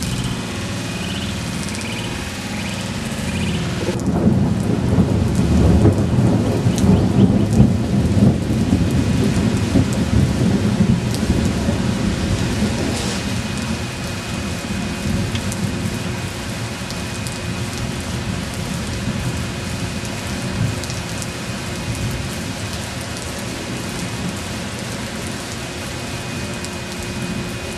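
Heavy thunderstorm: steady rain with a long roll of thunder that builds about four seconds in and rumbles on for several seconds before easing off.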